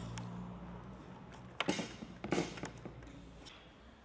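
Low steady hum of a Leister Variant T1 hot-air tape welder fading out about half a second in. This is followed by two sharp knocks a little under a second apart, with a short ring after each.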